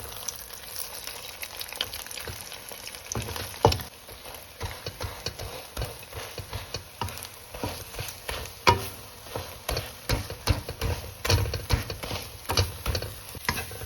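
Beaten egg with scallions sizzling as it fries in a pan. A spatula scrapes and taps against the pan at irregular moments.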